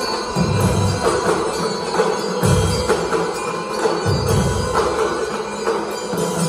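A drum and lyre corps playing live: bell lyres and mallet percussion hold a sustained tune over heavy low drum strokes that swell every second or two.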